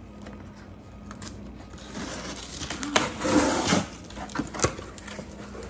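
Cardboard box being handled and opened: a rustling, scraping stretch of cardboard and packing, loudest in the middle, with a couple of sharp clicks.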